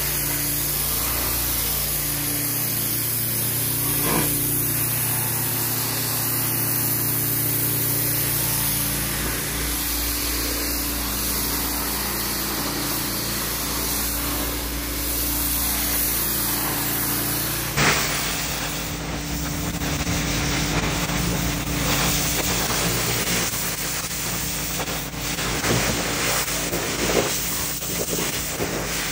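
Pressure-washer wand spraying a high-pressure water jet onto a concrete walkway: a steady hiss of water over the machine's constant hum. About 18 seconds in there is a sharp click and the spray sound changes character as the scene cuts to water being sprayed over brick pavers.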